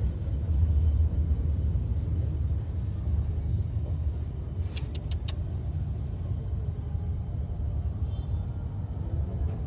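Low, steady rumble of a vehicle engine running, with four quick, high clicks in a row a little before halfway through.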